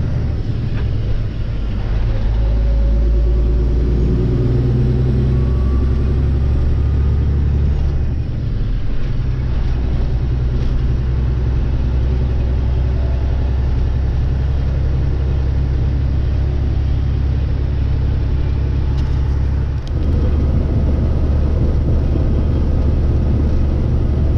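Semi-truck diesel engine droning steadily, heard inside the cab while driving. The drone dips briefly and changes about a second in, at about eight seconds and near twenty seconds, as gears are shifted on the manual transmission.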